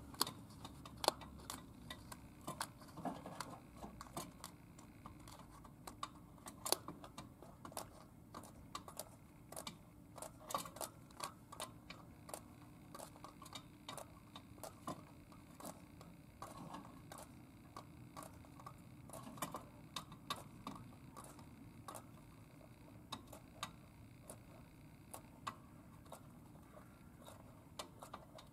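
A budgerigar working its beak on the cage floor: small, irregular clicks and taps, at times several in quick succession.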